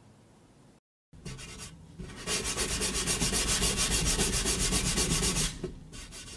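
Sandpaper rubbed by hand over a wooden drawer front in quick back-and-forth strokes, sanding dried wood filler flush so the gap disappears. It is loudest in the middle and tails off near the end.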